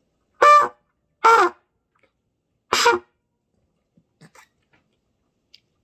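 Three short trumpet notes blown by a beginner practising producing a tone, the second one sliding down in pitch.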